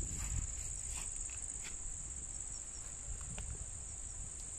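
Steady high-pitched chorus of insects shrilling, with a low rumble and a few faint ticks beneath it.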